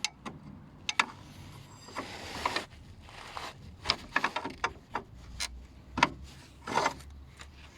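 Hyundai Accent's front suspension squeaking and creaking in a series of short, irregular squeaks.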